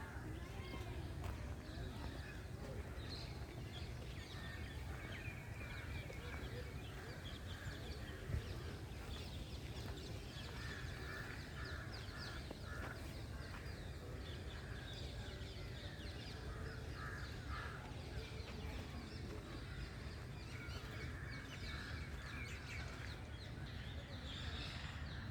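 Birds calling and chirping in short, scattered calls that come thickest about halfway through, over a steady low rumble.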